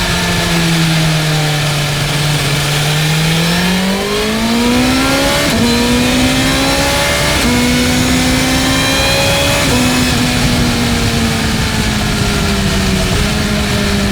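BMW M1000R's inline-four engine under way: steady at first, then revving up about four seconds in, with several short drops in pitch at gear changes, and slowly easing off in the later part.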